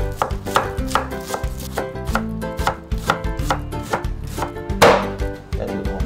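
Chef's knife slicing spring onions into shreds on a wooden cutting board: quick, even taps of the blade on the board, about three a second, with a louder hit near the end. Background music plays under it.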